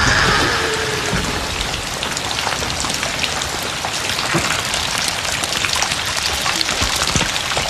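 Heavy rain pouring steadily: a dense hiss of falling water with many small drop splashes.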